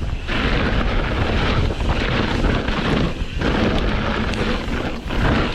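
Wind rushing over the microphone of a mountain bike descending fast, mixed with the rumble of knobby tyres on rough dirt and rock. The noise is steady and loud, dipping briefly a few times.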